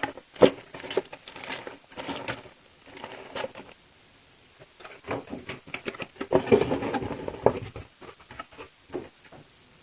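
Plastic model-kit parts in their bags crinkling, rustling and knocking against a cardboard box as they are pushed back into it, in irregular bursts with a short lull about halfway through.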